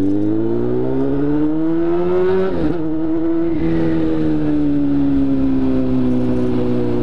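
Motorcycle engine under the rider, revving up for about two and a half seconds, dropping sharply at a gear change, then holding and slowly easing off as the bike rolls on.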